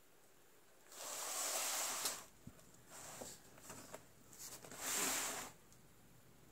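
Heavy painted paper pages of a mixed-media art journal being handled as a flip-out page on paper hinges is turned and unfolded: a long paper swish about a second in, softer rustles after it, and a second swish about five seconds in.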